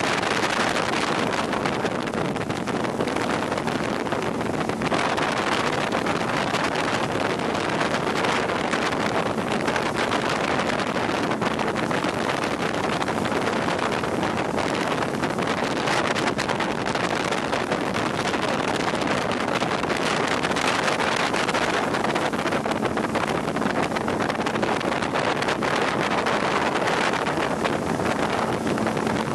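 Steady rush of wind buffeting the microphone and water spray from a motorboat running at speed, with the boat's engine running underneath.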